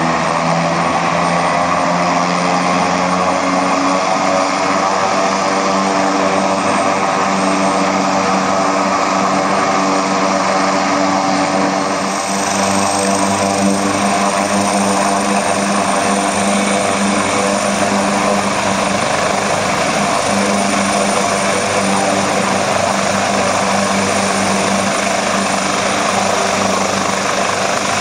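Leonardo twin-turbine rescue helicopter running at flight rotor speed, a steady loud rotor hum under a high turbine whine, then lifting off from the pad into a low hover.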